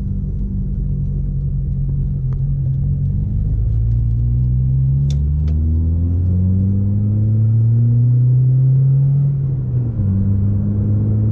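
Chevrolet Corsa 1.4 four-cylinder engine with a Luzian sport exhaust (sport intermediate and rear mufflers) droning under acceleration, its pitch climbing slowly with the revs. The pitch then drops suddenly near the end. A few sharp clicks are heard along the way.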